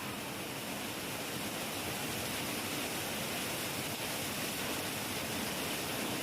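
Heavy rain falling steadily: an even, dense hiss with no thunder.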